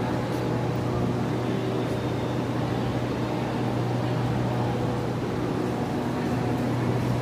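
A large engine idling steadily: an even low hum with overtones and constant noise above it, unchanging throughout.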